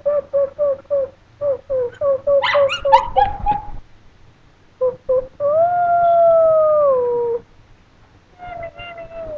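Chinese crested dog howling. It starts with a quick run of short yips, about four a second, that climb into higher yelps. Then comes one long howl of about two seconds that drops in pitch at its end, and a shorter howl near the end.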